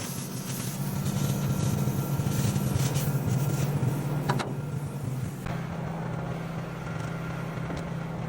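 A small engine running steadily, with several seconds of loud hissing and crackling from metal being cut over it, which stops about five and a half seconds in.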